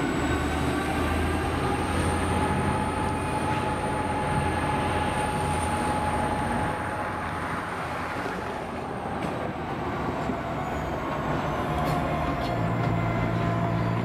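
Two EMD SD50-2 diesel-electric locomotives running under power while moving a cut of tank cars, their engines a steady low drone with a thin high whine over it. The whine fades out past the middle, and the engine note shifts a little about twelve seconds in.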